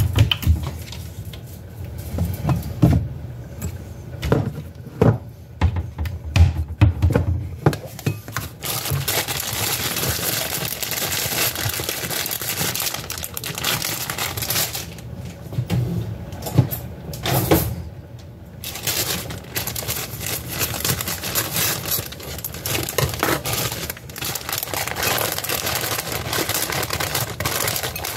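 A few knocks and thumps of things being handled and set down, then long stretches of plastic-bag crinkling and rustling as a bag of shredded lettuce is opened and emptied into a container.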